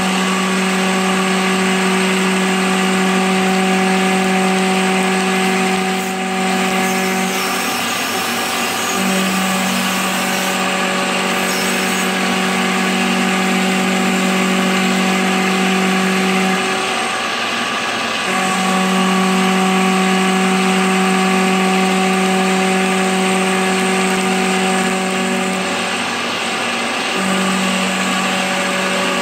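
CNC milling machine's end mill cutting a pocket in a cast iron block, running dry: a steady pitched hum over a hiss of cutting, which dips out briefly three times, about every nine seconds.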